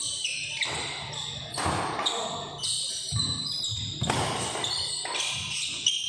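Badminton doubles rally: a series of sharp racket hits on the shuttlecock, with the players' footwork and shoe squeaks on the court floor.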